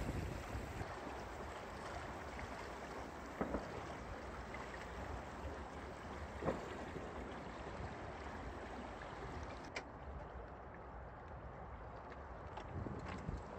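Water rushing and lapping along the hull of a sailboat under sail, a steady wash with no engine running. A few faint knocks come through, about three in all.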